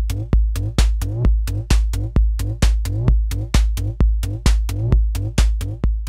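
A looping electronic dance beat from drum-machine software: heavy kick and bass pulses about twice a second, dense short ticks, and a snare synthesised from white noise in a Massive synth on beats 2 and 4, run through reverb. Short synth tones rise in pitch on each pulse.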